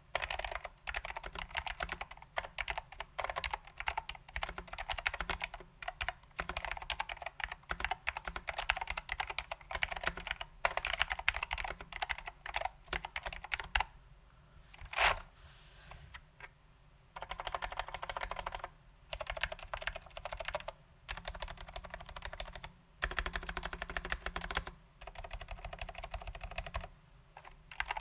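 Typing on a custom 60% Alps keyboard: SKCM Salmon Alps switches lubed with Finish Line dry lube, under vintage Alps doubleshot ABS keycaps in a BBOX 60 case. Fast, dense runs of keystrokes with short pauses, and a longer pause about halfway that is broken by a single sharp clack.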